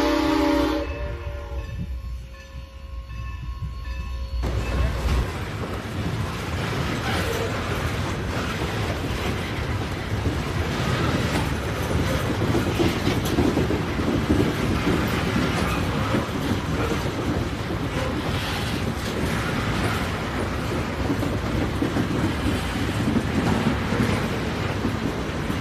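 A train whistle sounds a held, many-toned note that cuts off within the first second. After a few quieter seconds, a train's wheels start running on the rails with a steady rumbling, clattering noise that lasts to the end.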